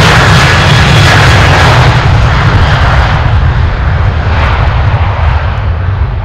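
Boeing 737-800's twin CFM56-7B turbofan engines at takeoff thrust, a loud jet roar with a deep rumble as the airliner accelerates down the runway. The higher hiss fades from about two seconds in and the roar slowly drops as the aircraft moves away.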